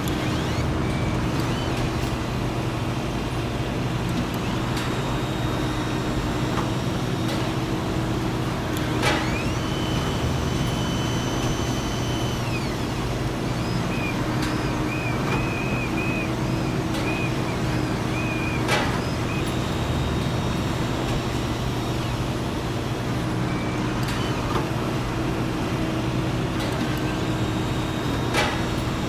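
Factory machinery running with a steady hum, a sharp clank about every nine to ten seconds, and a high whine for a few seconds after the second clank, followed by a warbling high chirp.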